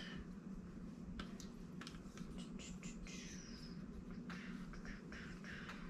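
Faint rustling and soft scraping of quilt fabric and fusible batting being handled and pressed with an iron, with scattered light clicks, over a steady low hum.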